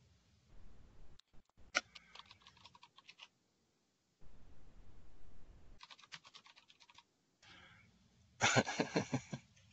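Computer keyboard typing in three short runs of rapid keystrokes, the last run near the end the loudest.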